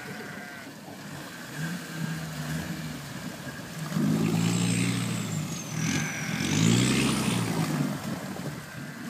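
Land Rover Defender's engine revving under load as it pushes through deep water, the revs rising about four seconds in and climbing again near the end, loudest on the second rise, with water churning and splashing.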